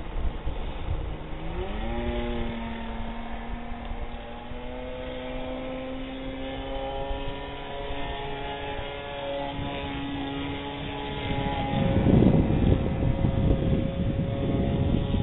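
Radio-controlled Funtana model airplane's motor and propeller running in flight, its pitch rising as the throttle opens about a second and a half in, then holding fairly steady with a slight waver. A louder rushing noise comes in about twelve seconds in.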